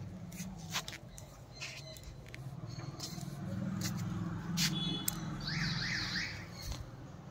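Outdoor morning garden ambience: short, scattered bird chirps over a low droning hum. A rapid run of repeated chirping notes comes about two-thirds of the way in.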